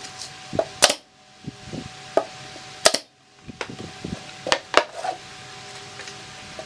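A series of sharp, irregularly spaced knocks on MDF boards as the speaker-cabinet panels are fastened together at a right-angle joint. The loudest come about a second in and about three seconds in.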